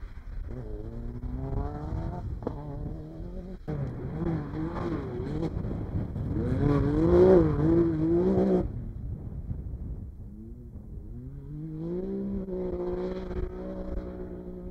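Off-road race cars' engines revving hard as they accelerate along a dirt track, the pitch climbing and dropping back with each gear change. The loudest pass comes about seven seconds in. The sound jumps abruptly twice from one car to another.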